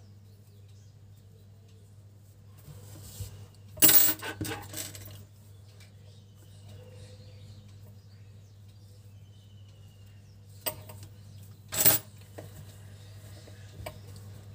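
Metal scissors clinking and clattering as they are handled and set down on a table: a cluster of clinks about four seconds in, then two sharp clinks later, over a steady low hum.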